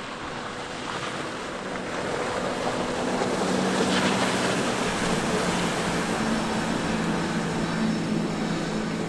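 Boston Whaler 420 Outrage's outboard engines running at speed on a close pass, their drone growing louder to a peak about four seconds in and then holding. The rush of the boat's wake and wind on the microphone run underneath.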